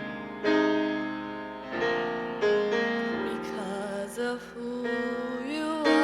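Keyboard playing slow, held chords of a gospel worship song, struck afresh every second or so, with a voice briefly wavering over it near the middle and again near the end.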